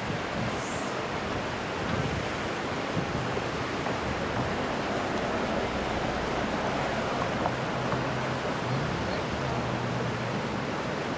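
Steady rushing of a river's current flowing past wading anglers.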